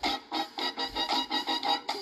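Background music: a quick, even run of pitched instrumental notes, about four to five a second, with almost no bass.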